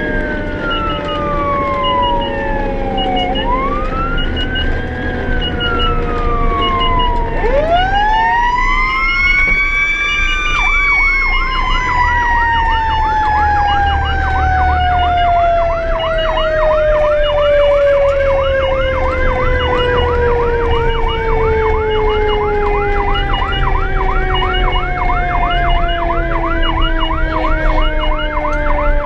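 Fire apparatus sirens on an emergency response. An electronic siren wails, rising and falling every few seconds. About a quarter of the way in, a mechanical siren winds up and then slowly winds down in pitch for the rest of the time. A fast yelp from the electronic siren joins it about a third of the way in, with the vehicle's engine rumbling underneath.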